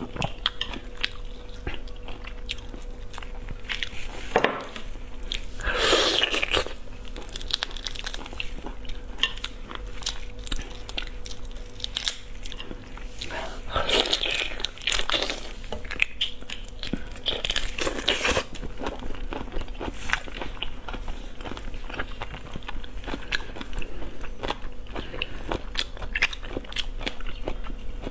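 Close-miked eating of shell-on shrimp: many crisp bites, crunches and chewing sounds, with a few longer, louder noisy stretches about six seconds in and twice more later. A faint steady hum sits underneath.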